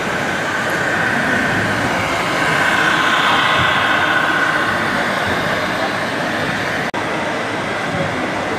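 Electric drive whine of an RC model MAN truck driving, a high steady whine that swells for a few seconds over the constant hubbub of a crowded model show. The sound drops out for an instant about seven seconds in.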